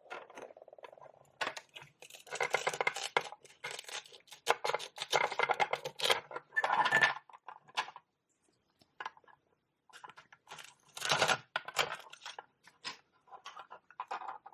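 Velcro joins on pretend toy oranges tearing apart in several rasping rips as the fruit is cut into pieces, with a few light knocks of the toy pieces in between.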